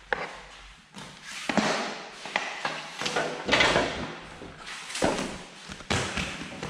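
Metal baking trays scraping and clattering as they are handled and slid along the rack and work table, in a string of noisy bursts about a second apart.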